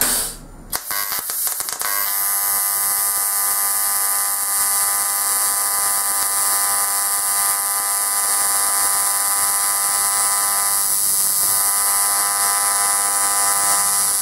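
AC TIG welding arc on thin aluminum sheet. After a couple of brief crackles as it strikes, it settles into a steady high buzz with hiss about two seconds in, then cuts off sharply right at the end.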